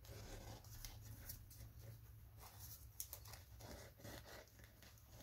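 Near silence with a low steady hum: faint scattered taps and rustles of hands working a cardboard journal cover and a squeeze glue bottle, with a slightly sharper tick about three seconds in.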